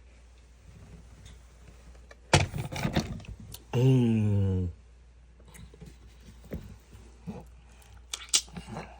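Someone eating mango: wet biting and chewing clicks about two seconds in, then a hummed "mmm" of just under a second, and a few more mouth clicks near the end.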